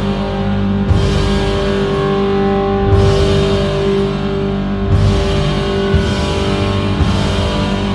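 Background rock music with sustained guitar and drums; a hit that reaches into the highs lands roughly once a second.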